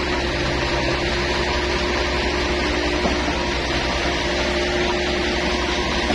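Concrete pump and transit mixer truck running: a steady, loud engine and machinery drone with a constant hum and no distinct knocks.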